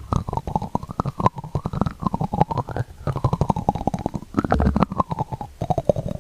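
ASMR mouth sounds: a fast, continuous run of clicking pulses, the tone of which rises and falls.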